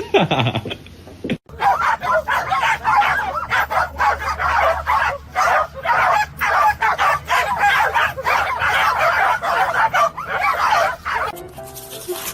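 An animal calling over and over in rapid, harsh, noisy bursts for about ten seconds, after a quick falling tone at the start. Music comes in near the end.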